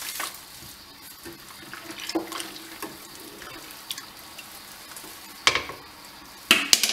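Wooden spoon stirring pilsner malt into hot mash water in an enamel pot, with soft sloshing and a few sharp clicks, the loudest cluster near the end. The grain is being mashed in.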